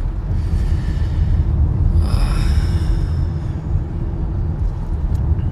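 Steady low road rumble inside a moving car's cabin, with a brief hiss about two seconds in.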